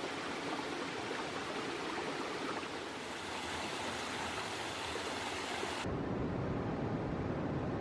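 Water flowing over rocks in a shallow forest stream, switching about three seconds in to the brighter splashing of a small waterfall. Near the end it cuts to ocean surf, deeper and lower in pitch.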